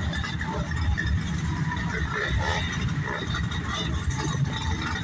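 Engine of a classic pickup truck rumbling steadily as it pulls out onto the road.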